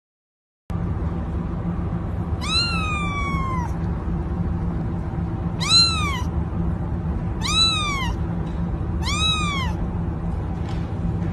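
Ginger kitten meowing four times, each call rising then falling in pitch, the first one the longest, over a steady low hum.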